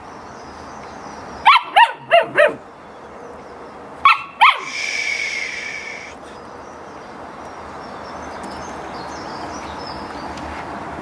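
Samoyed puppy giving short, high yapping barks, each dropping in pitch: four in quick succession, then two more a couple of seconds later.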